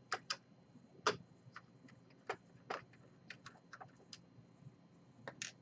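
Faint, irregular small clicks and ticks of a hand screwdriver working the screws out of a laptop's CPU heatsink, metal tip clicking against the screw heads.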